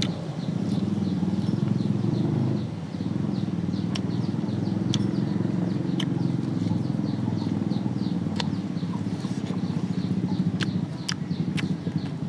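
Eating at the microphone: chewing, with a few sharp mouth clicks, over a steady low rumble that dips briefly about three seconds in. A faint high chirp repeats about three times a second throughout.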